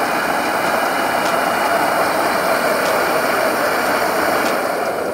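SuperFlow SF-1020 flow bench's blower running, pushing a steady rush of air out through a 3D-printed exhaust manifold at about 185 CFM in a single-cylinder flow test. The rush begins to die down near the end.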